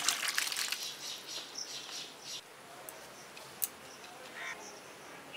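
A sharp metal clank, then a metal spatula scraping and clinking against a metal pan as thick curry of taro root and potato is tipped out into a steel bowl. The scraping dies away after about two and a half seconds, and one more sharp click follows a second later.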